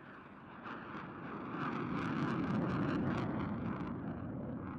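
Fighter jet passing low overhead: its engine noise swells to a peak about halfway through, crackling at its loudest, then eases off as it moves away.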